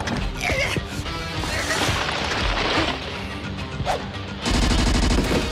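Cartoon battle sound effects over action music: gunfire and crashing impacts, getting louder about four and a half seconds in.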